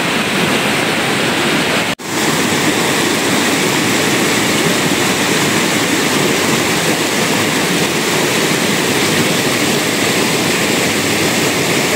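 Steady rushing noise of fast-flowing water, breaking off for an instant about two seconds in.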